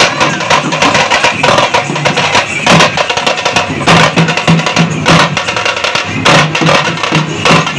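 A group of street drummers beating small strapped-on drums with sticks in a fast, continuous rhythm, with dense overlapping strokes and no pauses.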